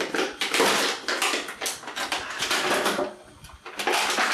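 Plastic blister packaging of an action figure crinkling and crackling as it is pulled and torn open by hand, with a brief lull about three seconds in.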